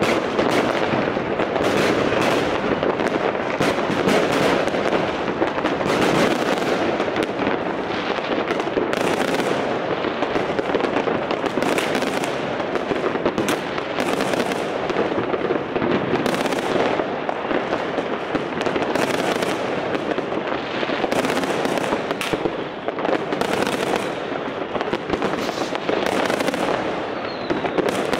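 Dense, unbroken barrage of New Year's fireworks and firecrackers: countless overlapping bangs and crackles with no let-up.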